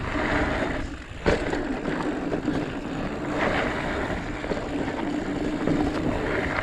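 Mountain bike riding fast down a dirt trail: wind buffeting the action camera's microphone and knobby tyres rumbling over the dirt, with a steady low hum and one sharp knock about a second in.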